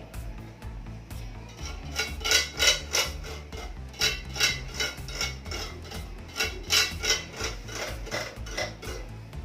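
Small metal tools and clamps clinking and tapping irregularly against a manual racket-stringing machine while a string is tied off, with background music underneath.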